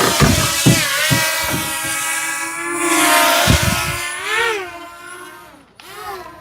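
WeFone WF31 quadcopter's brushless motors whining during takeoff, the pitch rising and falling as the drone lifts off and steadies, with several low thumps in the first few seconds.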